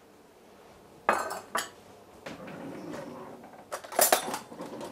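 Cutlery and kitchen utensils clinking and clattering as someone fetches a knife: a couple of sharp clinks about a second in, a rattling stretch, then a quick cluster of loud clinks near the end.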